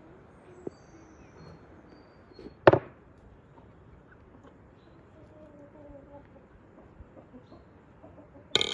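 Two sharp knocks over a quiet background with faint high chirps early on: a dull one about two and a half seconds in, and a brighter, ringing clink near the end as a metal spoon strikes an enamel bowl.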